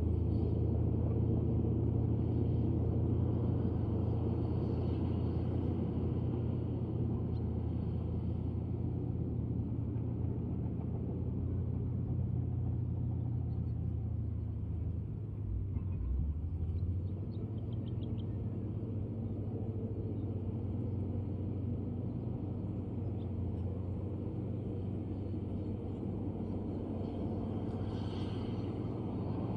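Komatsu D155A bulldozer's diesel engine running steadily with a deep, low drone, dipping briefly about halfway through, with a few faint clinks.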